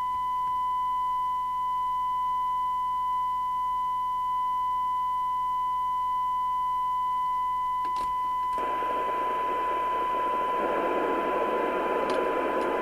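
Steady 1 kHz test tone from a Domico Convoy 1 FM CB radio's receiver audio, the demodulated test signal used for receiver alignment. About eight seconds in there is a click, and then a hiss of receiver noise rises up under the tone.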